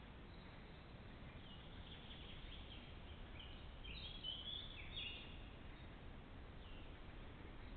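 Common crane calling: faint, high chirping notes in a quick series, loudest about four to five seconds in, with a few more near the end. Under them is a steady low hiss.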